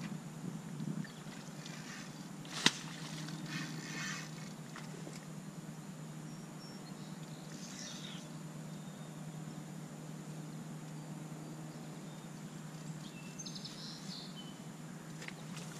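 Steady low outdoor hum by a river, with one sharp click about two and a half seconds in and a few brief, faint high-pitched sounds later on.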